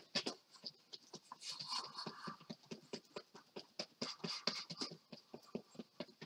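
A paintbrush dabbing and scrubbing on a stretched canvas: quick irregular taps, several a second, with short scratchy stretches of the bristles dragging across the surface.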